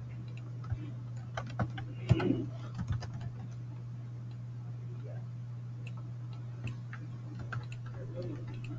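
Computer keyboard typing and mouse clicks, scattered short clicks in small runs that are busiest in the first few seconds, over a steady low hum.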